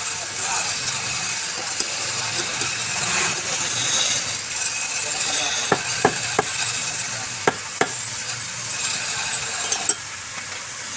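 Wood lathe running with a turning tool cutting into the spinning workpiece: a steady hissing scrape over a low motor hum, with several sharp clicks about halfway through and again near the end.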